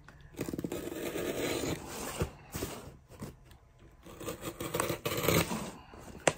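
Packing tape and plastic wrapping being scraped, cut and torn off a package by hand, in two stretches of scraping and tearing with a few clicks between. The package is wrapped tightly in tape.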